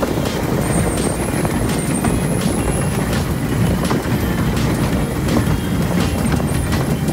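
Wulai tourist trolley's narrow-gauge train running along the track: a steady rumble and rattle of wheels on rail, with irregular sharp clicks and a thin high whine that comes and goes.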